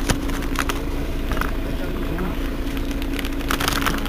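Mercedes-Benz Citaro Facelift city bus running: a steady engine drone with a constant hum over a low rumble, and a few brief clicks and rattles.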